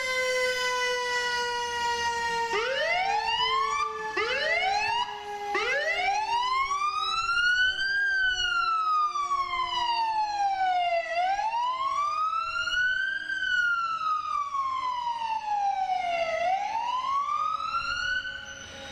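Fire department vehicle sirens: several short rising whoops in the first few seconds, then a slow wail that rises and falls about every five seconds, with a steadier siren tone sliding slowly down in pitch underneath.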